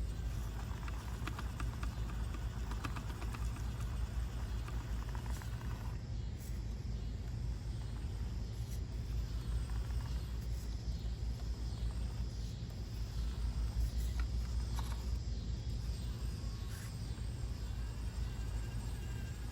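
A 1/24-scale RC rock crawler's small electric motor and gears whining in short stop-start spurts as it climbs rock, with the odd click of tyres and chassis on stone. A steady low rumble runs underneath.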